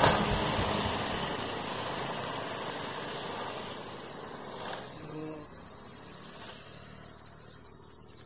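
A steady, high-pitched chorus of insects shrilling without a break. Low-pitched noise under it fades away over the first three seconds.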